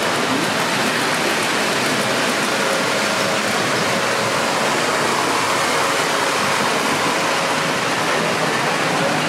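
Steady rushing background noise, an even hiss with a faint steady tone, with no distinct voices or clicks standing out.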